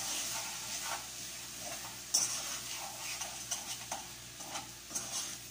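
A utensil stirring and scraping saluyot leaves in a pot on the stove, in short irregular strokes over a steady frying sizzle. The sharpest scrape comes about two seconds in.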